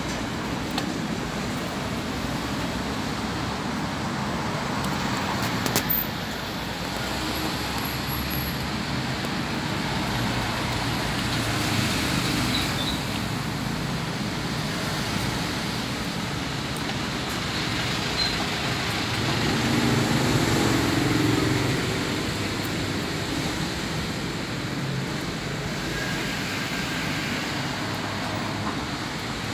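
Steady background rumble and hiss, swelling briefly about two-thirds of the way through.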